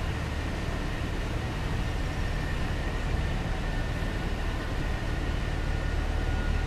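A sailboat's engine running steadily under way, a constant low hum with no change in pace.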